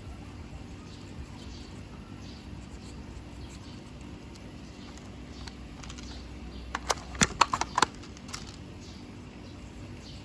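A quick run of six or seven sharp clicks within about a second, past the middle, over a steady low hum.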